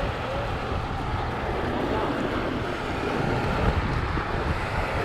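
Wind buffeting the microphone outdoors over water, a steady rumbling noise with light water sounds.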